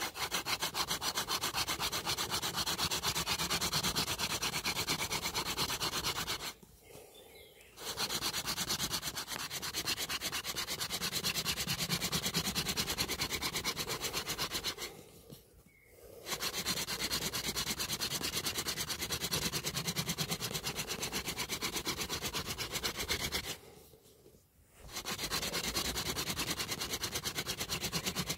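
Hazel-wood hand drill spun back and forth between the palms in the notch of a dry bay laurel hearth board: a steady rasping rub of wood on wood, broken three times by short pauses. The friction is grinding out hot black wood dust to form a friction ember.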